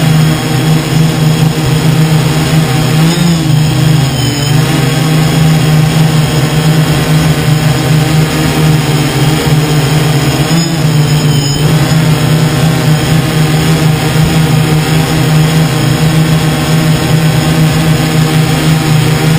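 A drone's propellers and motors humming steadily, loud and close, as it hovers. The pitch wavers briefly twice, about three seconds in and again about eleven seconds in.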